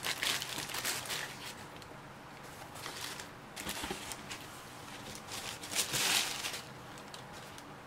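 Tissue wrapping paper rustling in a cardboard shoebox as a pair of basketball shoes is lifted out and set down, in several short bursts, the loudest about six seconds in.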